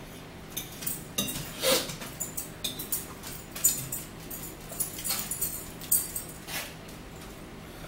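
Eating sounds: a fork clinking and scraping on a plate, with chewing and mouth noises, as a run of irregular short clicks and crackles.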